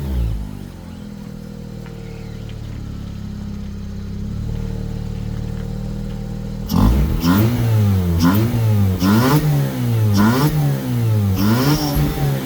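Mazda RX-8's Renesis rotary engine, fitted with a cold air intake and K&N air filter, idling steadily, then revved in a series of quick blips about once a second from about seven seconds in.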